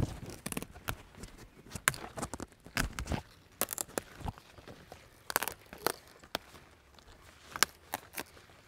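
Kohlrabi leaf stalks being snapped and torn off the bulb by hand, a string of irregular crisp snaps with leafy rustling between them.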